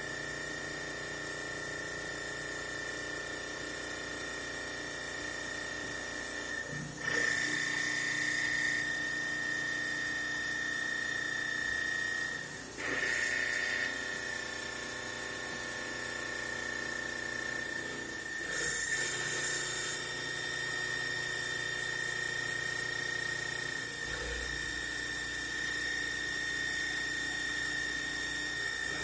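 CNC milling machine taking a roughing cut: a steady high-pitched spindle whine, shifting briefly in pitch and loudness a few times as the cut changes.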